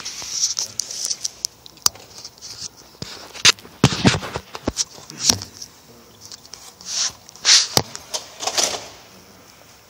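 Handling noise from fingers rubbing and tapping on a phone right at its microphone: irregular scrapes and knocks, loudest about four seconds in and again between seven and nine seconds.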